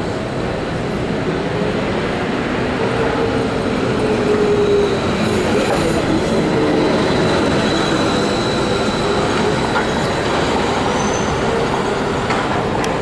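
New Flyer electric trolleybus at a stop and moving off, a faint steady high whine from its electric drive sitting over loud, continuous city street traffic noise.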